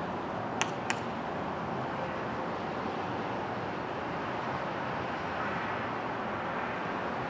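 Steady outdoor background noise, with two short sharp clicks about a third of a second apart less than a second in.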